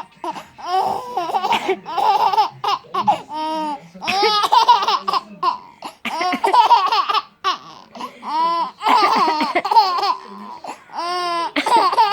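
A baby laughing in repeated high-pitched bouts of squealing laughter, set off by someone coughing.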